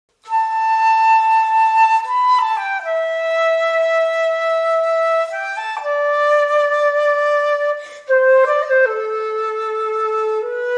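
Music: a slow solo melody on a flute-like wind instrument, playing long held notes one at a time with short slides between them.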